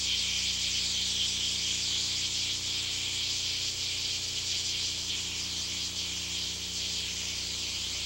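Steady insect chorus, a dense high-pitched buzz of crickets or similar insects, unchanging throughout, with a faint low hum underneath.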